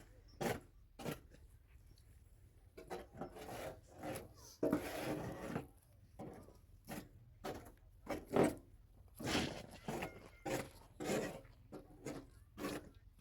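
Irregular scraping or rasping strokes, roughly one a second, each short and uneven in length, like hand work on a rough surface.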